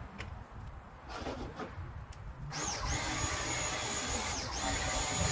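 A pressure washer starts up about halfway through and runs steadily: a motor whining high over the hiss of the spray. The whine dips briefly and recovers near the end. Before it starts there are only a few light knocks.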